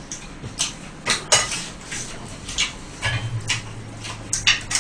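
Chopsticks and dishes clicking and clattering at a table of fried chicken, in sharp, scattered taps. A low steady hum comes in about three seconds in.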